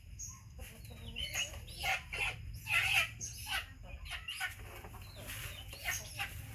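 Short, high animal calls repeated irregularly, like clucking, over a low steady hum.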